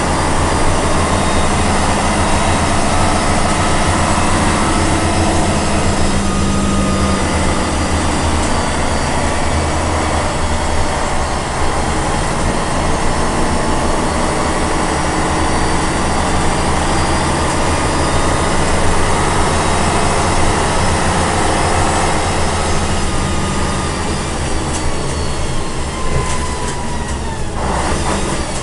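Tatra 813's air-cooled V12 diesel and drivetrain running under way, heard loud from inside the cab: a steady low engine drone with a higher whine over it. Near the end the sound dips briefly, as the driver works the gear lever for a gear change.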